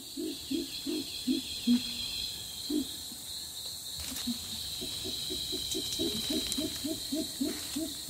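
Western lowland gorilla giving a series of low hoots, an adult calling to a young one. The hoots come about three a second, pause, and run on faster from about halfway. A steady high insect hum runs beneath.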